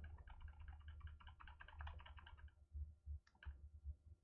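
Faint computer keyboard keys tapped in a quick run for about two and a half seconds, then a few single key clicks near the end, as a text file is scrolled down in a terminal editor.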